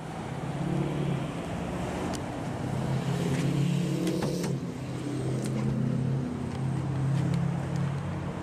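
Ford 6.7-litre Power Stroke V8 turbodiesel idling, heard from the rear at the dual exhausts: a steady low drone. A few faint clicks come through it as the tailgate is unlatched and lowered.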